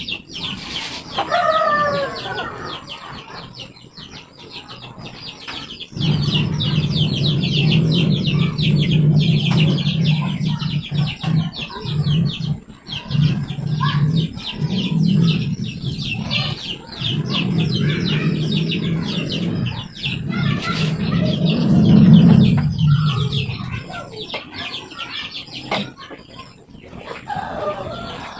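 A rooster crows about a second in and again near the end. Between them, from about six seconds in, a loud low hum goes on for roughly eighteen seconds before fading.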